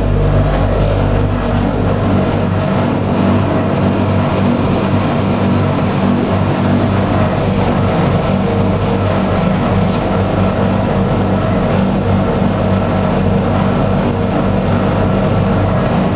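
Electrolux commercial washing machine running, with a steady motor hum and the churn of the drum.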